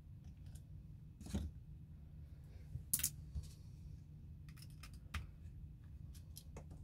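A hex screwdriver working small screws out of the plastic motor base plate of an airsoft gun's grip: a few faint sharp clicks and scrapes of metal tool on screw and plastic, over a steady low hum.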